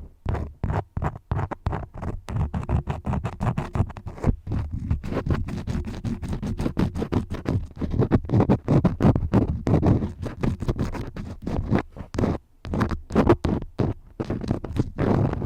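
Wax crayons scratching in quick, repeated strokes, with a couple of brief pauses.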